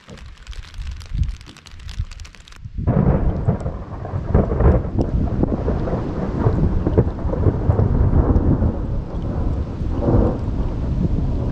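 Rain pattering and crackling on wet plastic bags and the boat, then, after a cut about three seconds in, a loud low rumble that rises and falls in gusts under the rain.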